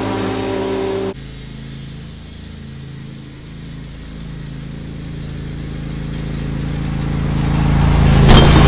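Husqvarna riding lawn mower's engine running steadily. It is loud for the first second, drops suddenly, then grows steadily louder as the mower drives up close, loudest near the end.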